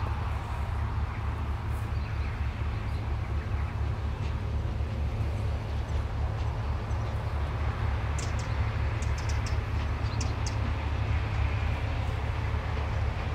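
Combine harvester working in a grain field: a steady low engine rumble with an even hiss over it, and a few short high ticks about eight to ten seconds in.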